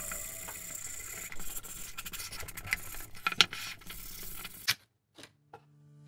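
Hand sanding the wooden edge of a bird feeder with a small piece of sandpaper: a rubbing scrape broken by a few sharp knocks, which cuts off abruptly about a second before the end.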